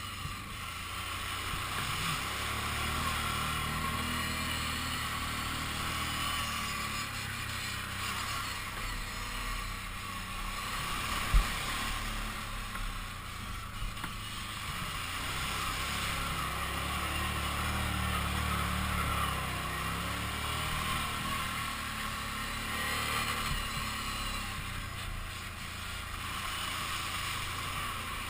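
Kawasaki Brute Force 750 ATV's V-twin engine running under way, its revs rising and falling gently. There is one sharp knock about eleven seconds in.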